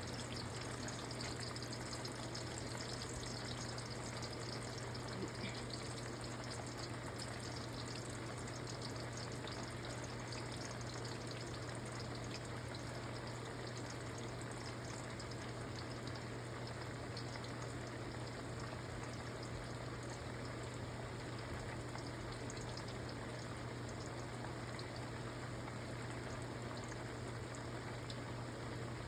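Food frying in hot oil: a steady sizzle with fine crackling throughout, over a steady low hum.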